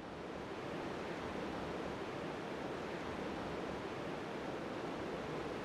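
Steady rushing of river water, fading in over about the first second and then holding even.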